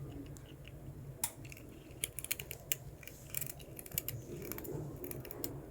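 A cat crunching murukku, a hard fried rice-flour snack: an irregular run of sharp crunches and clicks.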